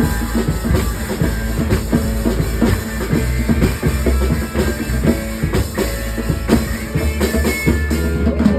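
Rock-style worship band playing, with a full drum kit and bass drum keeping a steady beat under the other instruments.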